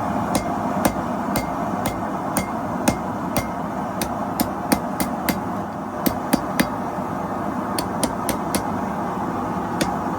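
Hammer striking hot steel on an anvil while forging a knife blade, about two ringing blows a second at an uneven pace, over a steady rushing noise.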